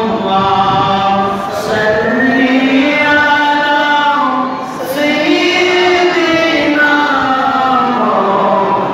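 A man chanting melodically into a microphone, religious chanting in long held notes that rise and fall in pitch, with short breaths between phrases.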